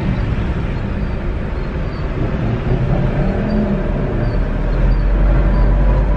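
Steady engine and road rumble inside a car's cabin, driving slowly in heavy city traffic.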